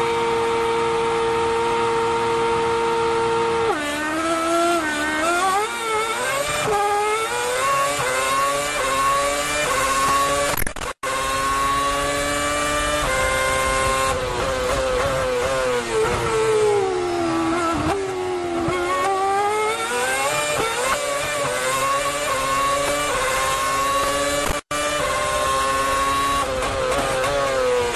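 Formula 1 2.4-litre V8 racing engines running on track: one note held steady for the first few seconds, then the revs rising and falling again and again. There are two brief drops to silence, one near the middle and one near the end.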